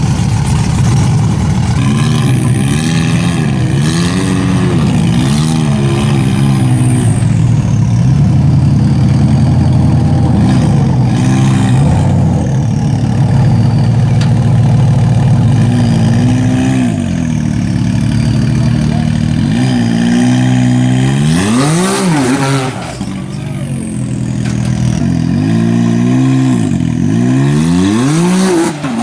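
Side-by-side UTV engine revving up and down over and over, its pitch rising and falling in repeated surges, with a short lull about 23 seconds in.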